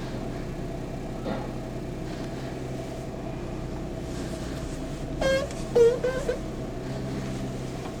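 Rubber steering shaft boot of a Suzuki Every DA64 squeaking in step with the steering being turned: a faint squeak about a second in, then three short squeaks about five to six seconds in. A steady engine idle runs underneath.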